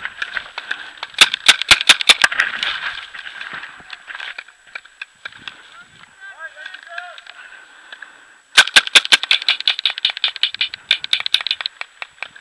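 Paintball markers firing: a quick cluster of sharp pops about a second in, scattered shots in the middle, then a long rapid string of pops starting about two-thirds of the way through.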